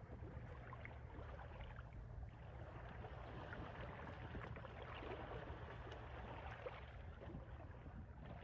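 Faint shoreline ambience: calm sea water lapping gently among rocks, with a steady low wind rumble.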